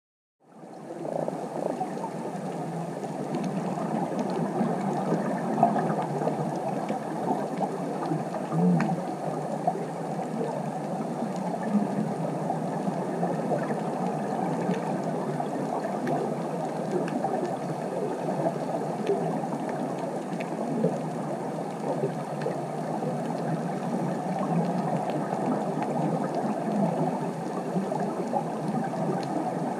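Underwater ambience picked up by a camera in its housing: a steady, muffled rush of water with faint scattered clicks, fading in about half a second in.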